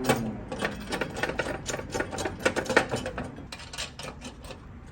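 Ratchet wrench with a 13 mm socket clicking as a bolt is run in, with metal clinks of the hardware. The clicks come quickly for about three seconds, then thin out and fade near the end.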